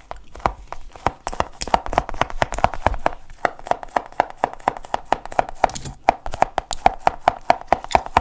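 Rapid sticky, tacky clicks and pops, about four to six a second, made close to the microphone as an ASMR sticky-sound trigger.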